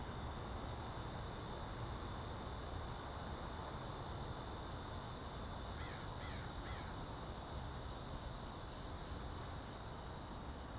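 Three crow caws in quick succession about six seconds in, over a steady rushing noise.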